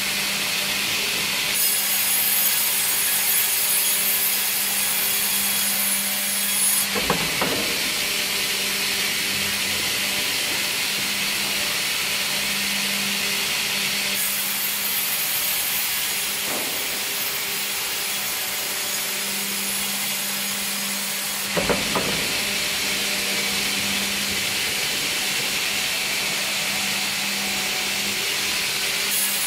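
Vertical band sawmill running steadily, its blade sawing through a log fed on a carriage. The bright cutting hiss comes and goes in two passes, each ending with a short clatter.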